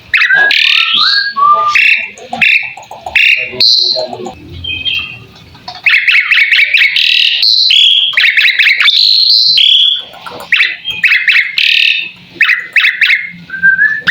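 Javan pied starling (jalak suren) singing a loud, varied song of rapid whistles and harsh chattering notes, with a quieter stretch about four to six seconds in.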